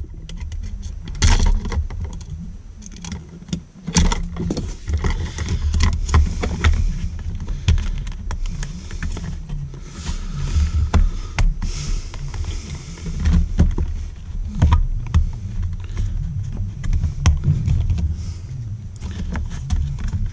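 Small metal clicks and scrapes of old outlet mounting screws being worked out of a plastic electrical box by hand, scattered irregularly over a steady low rumble.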